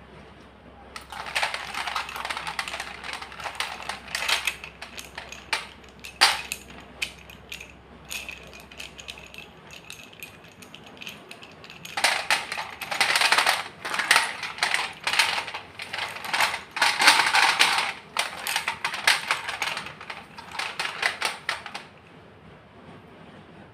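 White gym chalk being crushed and crumbled, a dry crunching crackle made of many quick small cracks in bursts. There is a quieter, sparser spell in the middle before a longer burst of crunching.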